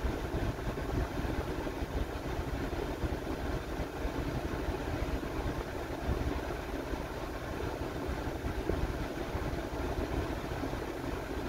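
Steady running noise inside the cab of an idling GMT-800 GM pickup: the engine idling under the HVAC blower fan pushing air-conditioned air out of the dash vents.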